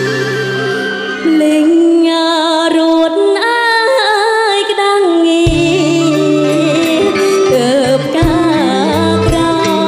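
A woman singing a Khmer song in bassac-opera style, her melody heavily ornamented and wavering, over a live band. The bass and drums drop out about a second in, leaving the voice over lighter accompaniment, then come back about five seconds in.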